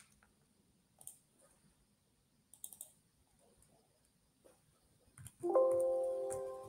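Faint, scattered computer keyboard keystrokes and mouse clicks while a user name is typed into a login screen. About five and a half seconds in, a chord-like chime sounds and fades over about a second.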